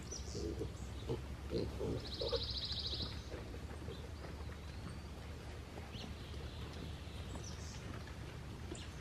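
Pigs, a sow and her piglets, grunting in short low grunts during the first couple of seconds, then quieter. A high trill lasting about a second comes about two seconds in.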